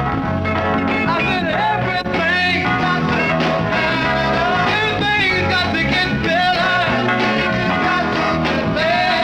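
Upbeat soul or rock record with a steady bass line and a singing voice.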